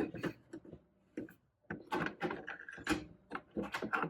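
Craft supplies being handled on a work table: a run of irregular clicks, taps and rustles, with a short squeak about two and a half seconds in.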